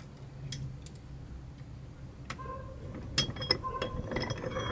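Small metal parts of a Barient winch top and a Winchmate self-tailing kit clicking and clinking under hand and tool as the kit is fitted. A few scattered clicks at first, then a quicker run of ticks and short metallic rings in the last second and a half, over a low steady hum.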